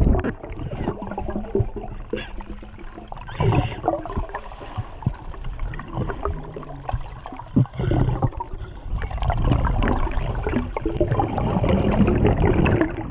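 Water sloshing and splashing close to the microphone, with a low rumble and scattered knocks that grow louder in the second half.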